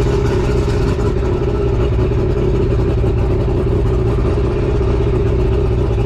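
Force 120 two-stroke outboard motor running steadily on a flushing hose, its level even throughout. It is running smoothly on new spark plugs and a rebuilt carburetor.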